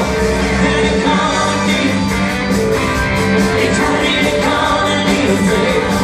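Upbeat pop-rock music with singing.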